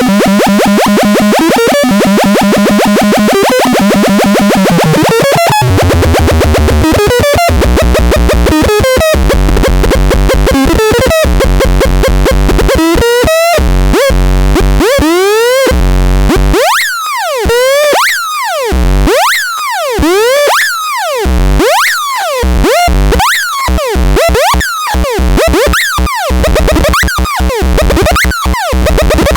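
Loud, harsh synthesized electronic tones with a buzzing, rapidly repeating pattern; from about halfway through, the sound turns into a run of swooping pitch sweeps, about one a second.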